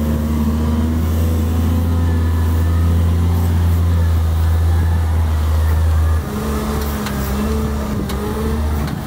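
Heavy diesel farm machinery running steadily, with a deep low hum that drops off suddenly about six seconds in, leaving a lighter engine note.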